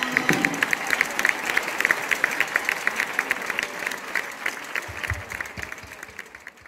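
Crowd applauding, a dense even patter of clapping, as the dance music stops right at the start; the applause fades away over the last couple of seconds.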